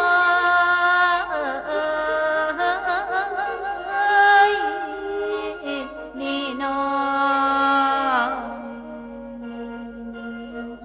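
Isan mor lam music: a wavering melodic line over a low held drone. The melody stops about eight seconds in and the drone carries on alone for a moment.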